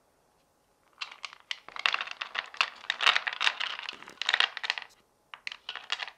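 White chocolate wafers pouring from a clear plastic tub onto a cutting board, clattering as a dense rush of small clicks for about four seconds. After a brief pause, a shorter trickle of clicks comes as the last wafers are tipped out.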